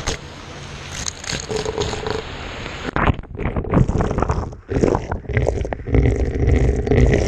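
Fountain water splashing over and onto a GoPro camera. A steady rushing hiss gives way about three seconds in to irregular splashes and muffled, deep gurgling as the water hits the camera.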